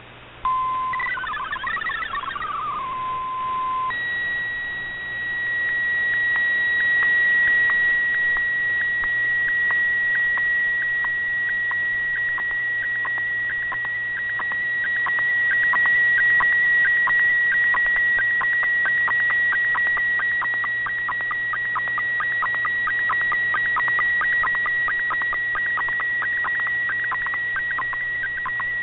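Shortwave digital-mode signal from the Shortwave Radiogram broadcast, heard through an Icom IC-R8600 receiver in AM: a brief dropout, then a warbling burst and a lower tone, then from about four seconds in one steady high tone with faint rapid ticking under it. This is the broadcast's digital image transmission.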